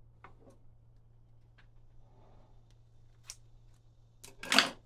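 Light clicks and taps of wood and hand tools being handled, with a sharper click a little after three seconds and then a louder brief scrape near the end.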